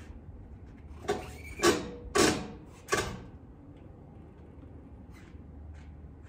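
A mountain bike being handled onto a 1UP bike tray on a van's rear hitch carrier: four short clatters and knocks of the bike and rack in quick succession, about a second in.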